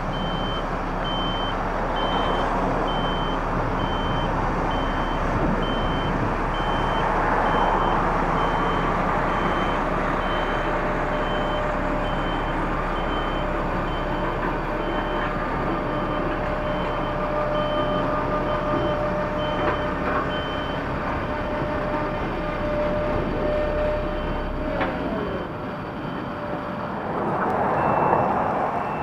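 Reverse-warning beeper giving short, even, high beeps about one and a half times a second, which stop about two-thirds of the way through, over a continuous vehicle rumble. A louder noisy swell comes near the end.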